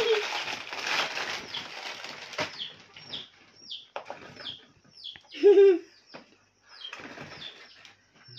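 Plastic snack wrapper crinkling under a hand for the first couple of seconds, with a high chirp repeating about twice a second behind it and a short voiced sound about halfway through.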